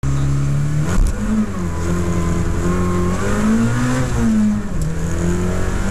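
Car engine heard from inside the cabin, accelerating hard from a standstill. Its pitch climbs and drops back with each gear change, with a short knock about a second in.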